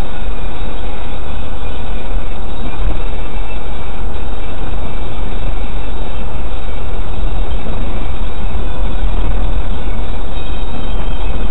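Steady road and engine rumble inside a moving van's cab, loud and unbroken, heaviest in the low end.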